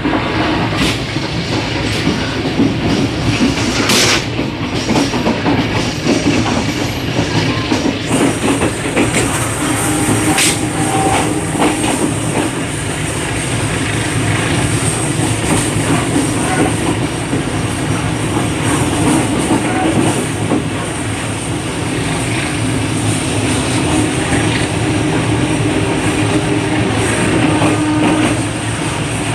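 Passenger train running along the line, heard from the vestibule between coaches: a steady rumble with the wheels clacking over the rail joints. A thin high whine joins about eight seconds in.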